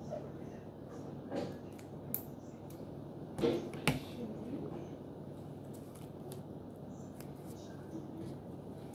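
Craft materials being handled on a tabletop: a few soft clicks, knocks and rustles from scissors and paper or cardboard, the sharpest click about four seconds in, over a steady low room hum.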